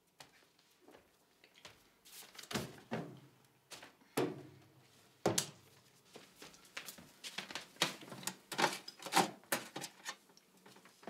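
Kitchen clatter: a run of knocks, clicks and bumps of things being handled. They come more thickly through the middle and later part.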